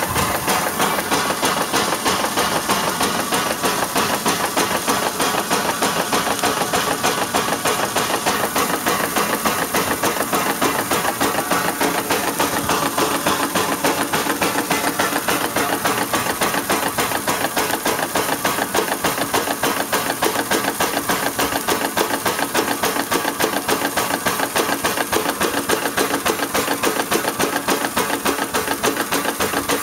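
Small steam engine running steadily at speed on its first run after a boiler test, with a fast, even beat of exhaust and mechanical clatter.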